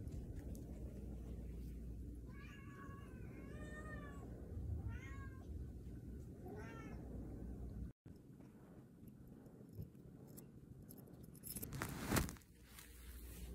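Domestic cat meowing four times in quick succession, the calls bending and falling in pitch: complaints at its owner's return home. Near the end comes a brief loud noise.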